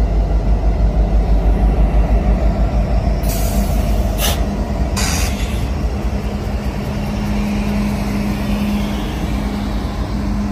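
Union Pacific diesel locomotives rumbling past at close range, a heavy pulsing throb of the engines giving way to a steadier hum as the later units go by, with a few short hisses near the middle.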